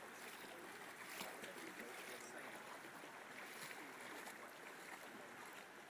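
Faint, steady rush of a shallow stream flowing over stones, with a few splashes from two Alaskan Malamutes wading through the water.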